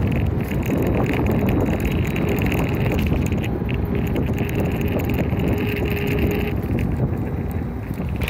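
Ride noise from a GoTrax electric scooter rolling across a bridge deck: steady low rumble with rattling and clicking, and wind on the microphone. A faint steady whine sounds from about a second in until past the six-second mark.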